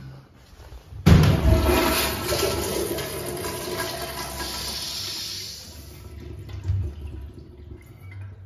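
A Sloan Royal 186 flushometer valve flushing a 1990s Kohler Dexter urinal. A sudden loud rush of water starts about a second in, then eases off after about five seconds to a quieter flow.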